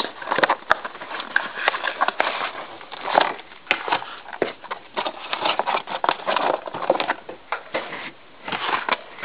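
Cardboard trading-card intro pack box being handled and its flaps pried open: irregular rustling, scraping and tapping of card stock, with a few sharp clicks.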